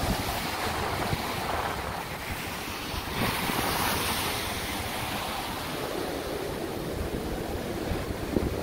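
Ocean surf breaking and washing, with wind buffeting the microphone; the wash swells louder about three seconds in.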